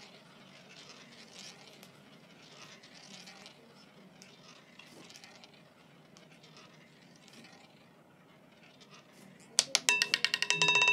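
Roulette ball running faintly around the spinning wheel. About a second before the end it drops and clatters in a quick run of sharp clicks as it bounces among the pockets, with steady ringing tones sounding over the clicks.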